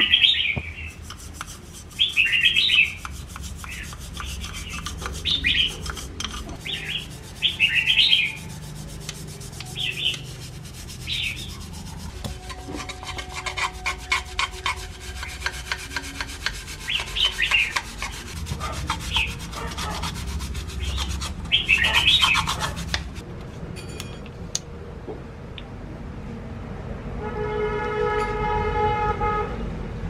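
A toothbrush scrubbing plastic and metal fan parts in a basin of soapy water, with quick rubbing strokes and short wet bursts scattered throughout. A steady pitched tone sounds for a few seconds near the end.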